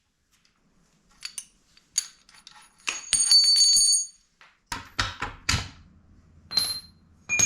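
Metal tools and motorcycle parts clinking and knocking as they are handled on a workbench, with several sharp hits that ring on briefly. A low steady hum comes in about halfway through.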